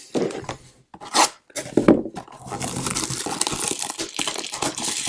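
Plastic shrink-wrap on a baseball card blaster box being torn open and crinkled: a couple of short rips, then steady crackling from about halfway through.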